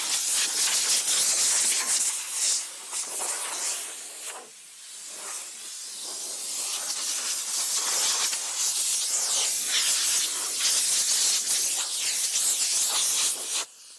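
Steady loud hiss of air or liquid spraying under pressure, easing off briefly about four and a half seconds in and stopping abruptly near the end.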